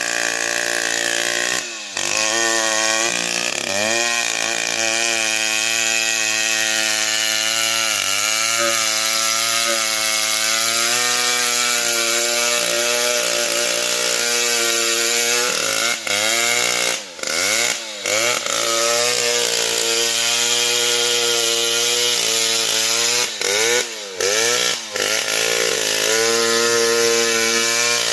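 STIHL MS 070 two-stroke chainsaw running at high revs while cutting wood, its pitch repeatedly sagging under load and recovering, with brief drops in sound a few times.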